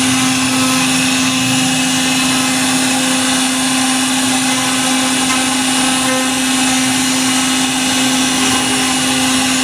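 CNC router spindle carving a wooden door panel, running at a steady pitch with a constant whine over a continuous cutting hiss.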